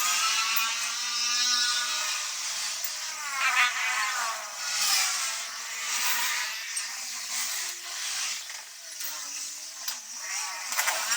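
A small electric motor running with a whine whose pitch rises and falls repeatedly as its speed changes.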